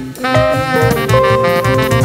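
Tenor saxophone playing a jazz line of sustained notes over band accompaniment, after a brief break in the phrase at the start.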